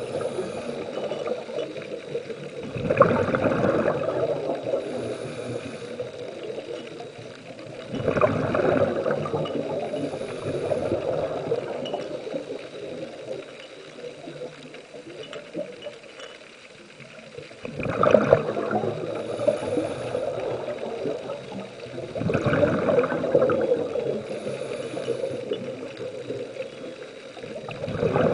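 Scuba diver's regulator breathing recorded underwater: five bursts of exhaled bubbles a few seconds apart, with a longer pause in the middle, over a steady dull rumble.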